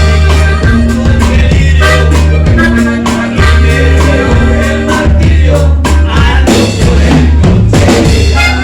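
Loud Latin dance music with a heavy bass line, a steady drum beat and a voice singing.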